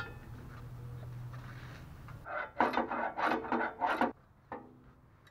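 Hand tools working the transmission heat shield's bolts loose under the truck: a quick run of about six rasping, scraping strokes beginning a little over two seconds in, then stopping abruptly.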